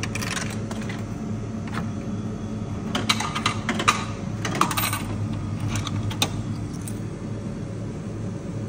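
Vending machine coin-return lever pressed again and again, each press clicking and letting 50p coins drop and clink into the return tray, over a steady hum.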